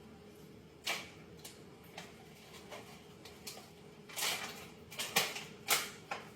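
A few short, sharp clicks and knocks with a brief rustle: one about a second in, then a cluster over the last two seconds.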